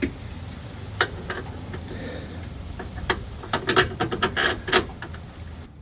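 Hand tools and bolts clicking and clinking against the car's suspension parts as a new lower control arm is worked into place: a single click about a second in, then a quick irregular run of sharp metal clicks in the second half.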